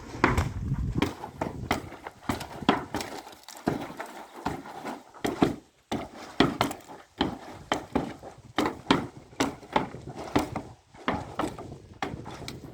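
Irregular sharp knocks and clatter from manual repair work, a few hits a second at uneven spacing, like tools striking wood or stone.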